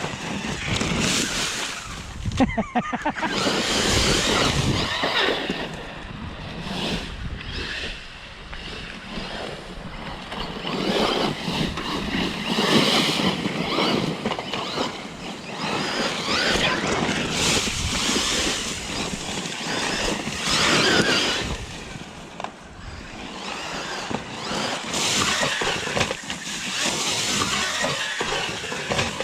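Electric Losi RZR Pro R RC side-by-side driving on a dirt track: repeated bursts of throttle with motor whine and tyres churning loose dirt, the sound surging and easing every second or two.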